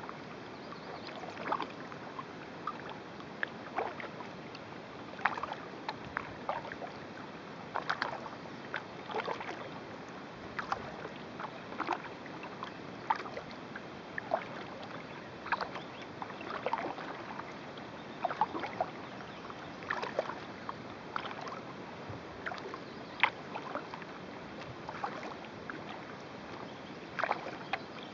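Kayak paddle strokes: short, irregular splashes and drips of water off the paddle blades, one or two a second, over a steady hiss.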